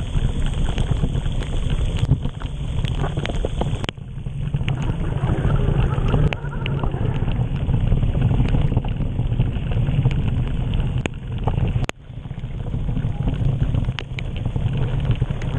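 Steady wind rumble on the microphone of a mountain bike riding a rain-soaked trail, with the bike's wet tyre and trail noise underneath and scattered clicks.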